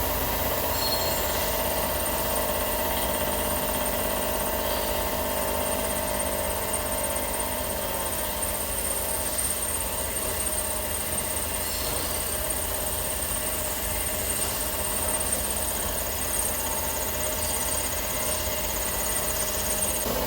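Hitachi Seiki VM50 three-axis CNC machining center milling a steel mold block with a 35 mm cutter at about 1000 rpm: a steady machine running sound with a thin, high, constant whine.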